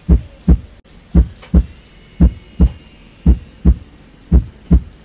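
Heartbeat sound effect: five slow, steady double thumps (lub-dub), about one pair a second.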